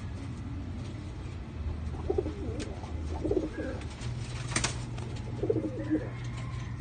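Domestic pigeons cooing, with short low coos about two, three and five and a half seconds in. A few sharp clicks and a low steady hum run beneath them.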